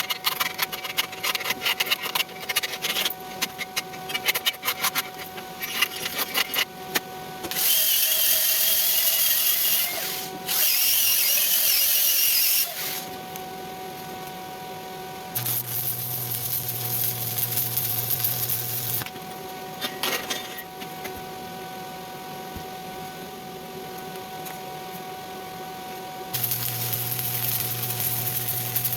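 Stick (arc) welding work sped up in time-lapse. Dense crackling and clicking at first, then two loud hissing stretches in the middle, then a steady hum that drops out and comes back near the end.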